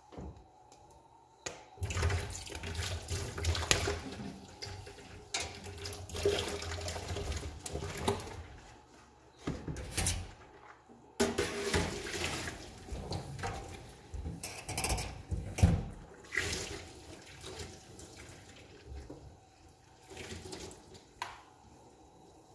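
Water running from a kitchen tap during dishwashing. It starts about two seconds in and comes and goes in stretches, with a few sharp knocks.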